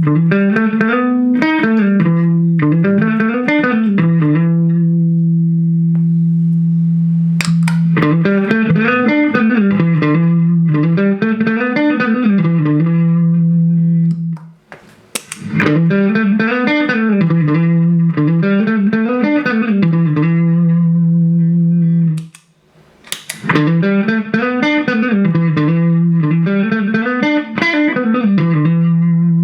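Electric guitar, a Fender American Deluxe Stratocaster through a Vox Pathfinder 15R amplifier, playing a single-note phrase with long-sustained low notes and bends. The phrase is played three times, with brief pauses about halfway through and again about three-quarters of the way in.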